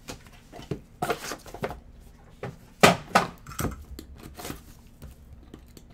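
A sealed trading-card box being handled on a tabletop: a run of cardboard knocks and scrapes, the loudest two about three seconds in, then softer scratching as a box cutter cuts into the box's seal.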